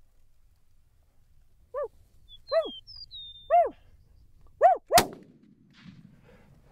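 Four short barks, each rising and falling in pitch, about a second apart, then a single rifle shot about five seconds in with a short echo. A bird chirps briefly between the barks.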